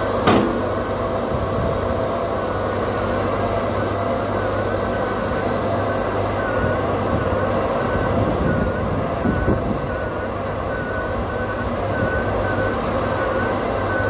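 Heavy construction machinery running steadily, with one sharp clank right at the start and a faint high warbling whine repeating over the engine noise.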